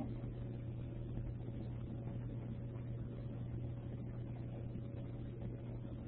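Steady low hum with a faint higher tone and light hiss: the background noise of the recording.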